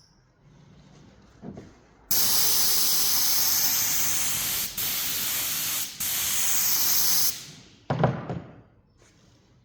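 A spray hissing in one long burst of about five seconds, broken twice for a moment, then a short loud knock and rustle about eight seconds in.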